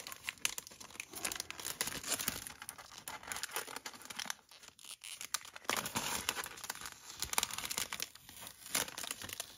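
Crinkling and rustling of box-set packaging and paper inserts being handled, with many small clicks and a short lull about halfway through.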